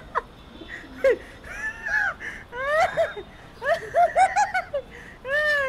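Person laughing in short, high-pitched bursts with pauses between them.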